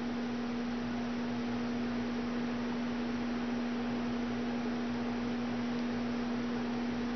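A steady electrical hum at one unchanging pitch over a faint even hiss; no separate sounds of the crochet work stand out.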